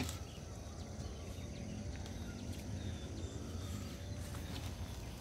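A hoe chopping and scraping into soft, wet soil, heard faintly over a steady low rumble.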